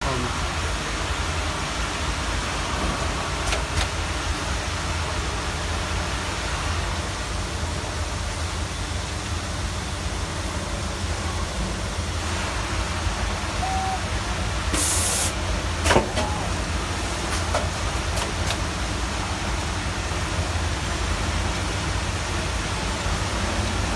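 Automatic in-line soldering machine running in a workshop: a steady mechanical hum and noise, broken by a few sharp clicks, the loudest about 16 seconds in, and a brief high hiss just before it.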